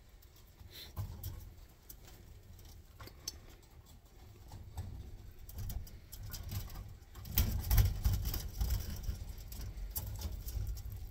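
Rex rabbits' feet scrabbling and thumping on a wire cage floor, with the cage wire rattling, as a buck mounts a doe to breed her. It is scattered at first and grows busier and louder from about seven seconds in.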